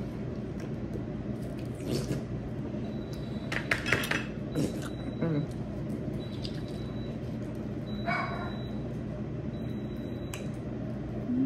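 Air fryer running with a steady hum while a hot sauce bottle is handled, its cap taken off, with a few clicks and knocks. Two short vocal sounds stand out, the louder about four seconds in and another about eight seconds in.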